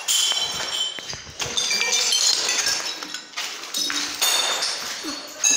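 Pieces of broken glass clinking and tinkling in a series of short bursts, about one a second, with a bright high ringing after each.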